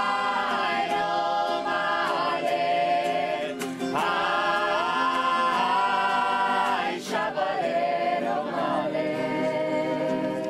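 A group of young women singing together in long held phrases, with short breaks between phrases about three and a half and seven seconds in.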